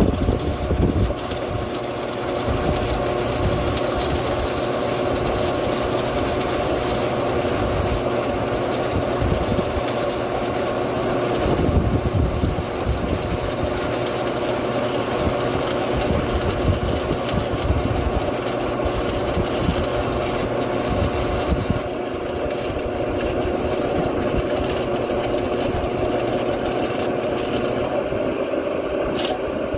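A Lincoln Idealarc 250 transformer welder under heavy load hums steadily, drawing about 40 amps from the 240-volt circuit, with a crackling hiss over the hum. Near the end there is a sharp click and the hiss thins out as the load comes off.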